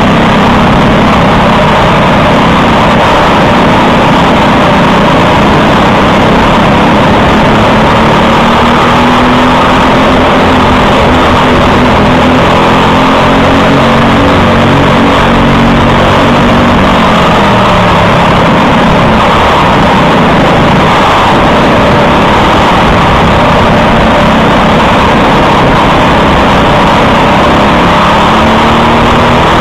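Briggs & Stratton LO206 single-cylinder four-stroke kart engine at racing speed, its revs climbing and falling repeatedly as it accelerates and backs off. It is loud and close, as heard from a camera mounted on the kart.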